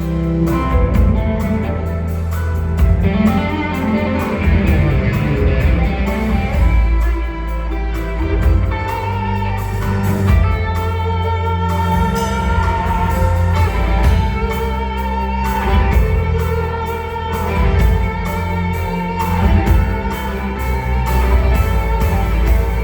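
Band music with guitar to the fore over a steady bass line and a regular drum beat, with no singing.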